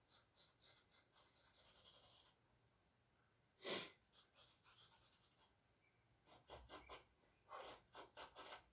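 Faint scratching of a charcoal stick on canvas, in runs of short, quick strokes. One louder, short puff of air comes a little before the middle.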